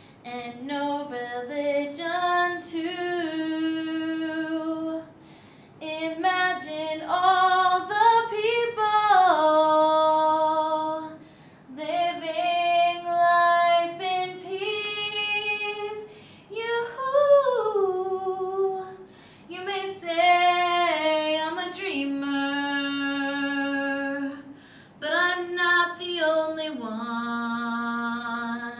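A woman's solo voice singing a cappella, a slow ballad sung in long held notes that slide between pitches, in phrases broken by short breath pauses.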